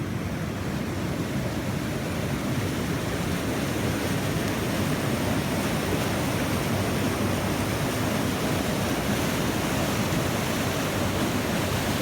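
Steady rush of falling water at the top of the Diyaluma waterfall, growing a little louder over the first few seconds and then holding.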